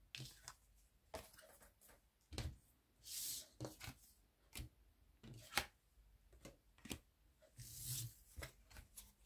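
Tarot cards being shuffled and laid out: scattered soft card clicks and taps, with two longer sliding swishes, about three seconds in and near the end.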